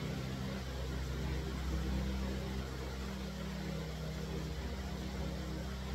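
Steady low hum with an even faint hiss: room noise from running machinery or equipment, with no voice.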